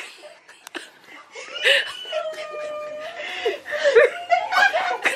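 Women laughing excitedly, mixed with high, drawn-out cries of delight.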